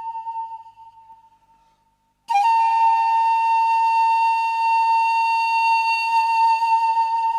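Pan flute playing a slow, long-held melody note that fades away into a brief silence. A new note starts sharply a little over two seconds in, with a short lower note at its attack, and is held long and steady.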